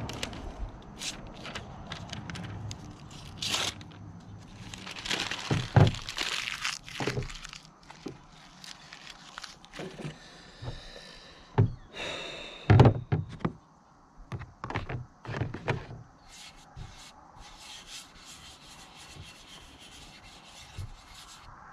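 Irregular knocks and scrapes of a large knife and whetstone being handled and worked, with the loudest knocks about six seconds in and again around twelve to thirteen seconds.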